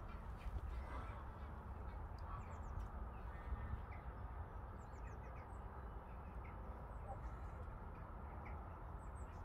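Greylag geese giving a few faint calls over a steady low rumble, with a few short high chirps of small birds now and then.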